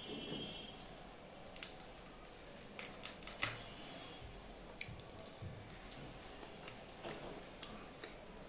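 A person eating rice by hand from a plate: scattered soft clicks and smacks of fingers working the food and of chewing, with a small cluster of them about three seconds in.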